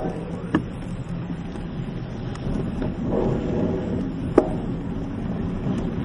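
Niner 29er mountain bike riding a dirt trail, heard through its handlebar-mounted camera: a steady low rumble of tyres and frame. Two sharp knocks of the bike over bumps come about half a second and about four and a half seconds in.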